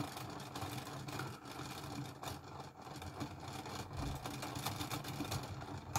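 Clockwork spring motor of a 1950s West German NBN tin wind-up juggling elephant toy running with a faint, steady whirr as it spins the propellers and drives celluloid balls up the wire spiral, with a few light ticks.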